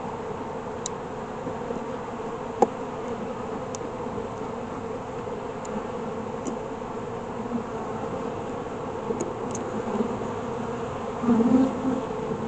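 Honeybees buzzing steadily around an open hive, with one sharp click a couple of seconds in and the buzz louder for a moment near the end.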